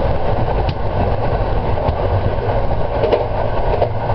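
A train running at speed on the rails: a steady rumbling wheel-and-rail noise with a few sharp clicks, one about a second in and a couple near the end.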